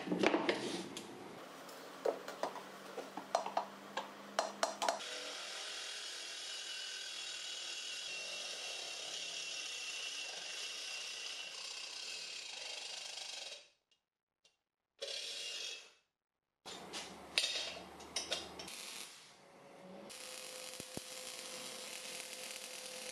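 Steel parts knocking and clanking on a steel welding table, then a steady cutting noise from a cordless reciprocating saw working the steel frame. After a couple of abrupt cuts, the steady hiss and crackle of MIG welding follows near the end.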